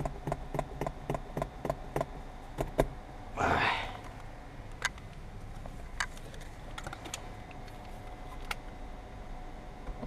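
Small plastic-and-metal clicks and knocks, a few a second for the first three seconds and then scattered, from a cordless drill and wire-cutting winder being handled and fitted together. A short rushing noise comes about three and a half seconds in.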